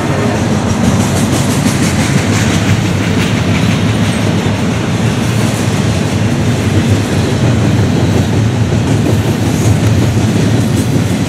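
Double-stack intermodal freight cars rolling past in a steady, loud rumble, with steel wheels clacking over the rails.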